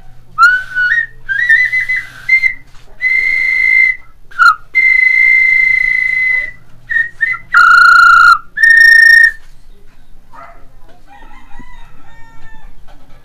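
Small fired-clay bird whistle blown in a string of short warbling toots, then one long steady note, then two loud blasts; it stops a little over nine seconds in.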